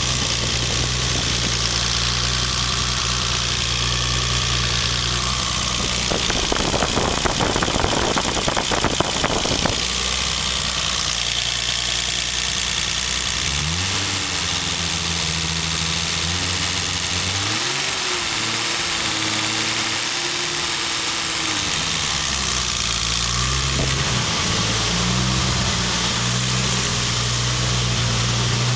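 Turbocharged BMW E30 engine idling with loud valvetrain noise, then revved once, its note rising and holding for several seconds before falling back to idle. The owner suspects a misfire, hard to pick out under the valve noise.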